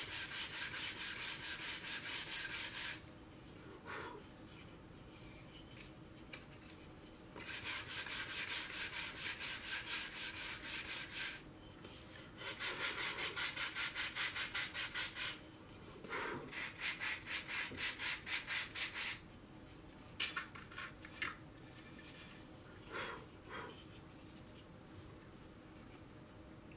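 Scroll saw blade cutting balsa wood: a fast, rhythmic rasp in runs of a few seconds, with pauses between cuts and short stop-start bursts near the end.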